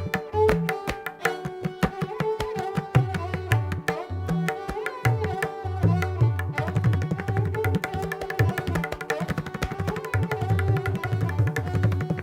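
Recorded Hindustani classical music in taal Pashto: tabla playing rapid strokes, with deep booming bayan bass strokes, over a sustained bowed sarangi melody. The drumming turns denser and brighter about halfway through.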